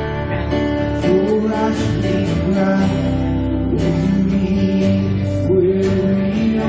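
Live worship song: a man singing a sustained melody over a strummed acoustic guitar and band backing.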